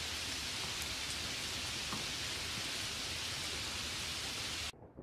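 Steady hiss of heavy rain, cutting off abruptly near the end.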